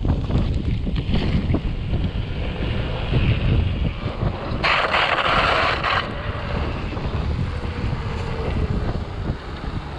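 Wind buffeting the action camera's microphone over the rumble of a Raleigh Tokul hardtail mountain bike descending a downhill trail. About five seconds in, a harsher hiss lasts about a second.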